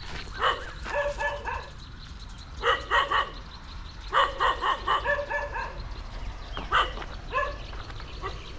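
A dog barking repeatedly in short runs of barks, with brief pauses between the runs.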